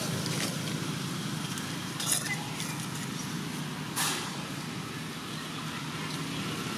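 Steady outdoor background hum, broken by two short sharp sounds, about two and four seconds in; the second comes as two young macaques scuffle on the ground.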